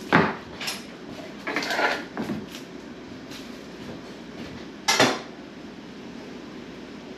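Kitchen handling noises on a wooden cutting board: a sharp knock at the start and another soon after, a longer rustling clatter around two seconds in, and a second sharp knock about five seconds in, as plastic wrap is pulled over the board and utensils are set down.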